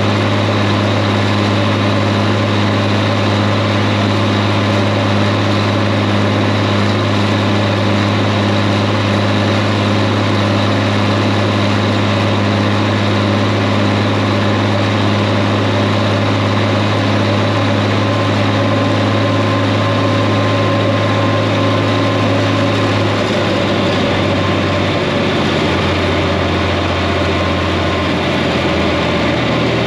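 John Deere 4010 tractor engine running steadily with the PTO engaged. About three-quarters of the way through, its low hum shifts and wavers as the engine speed changes.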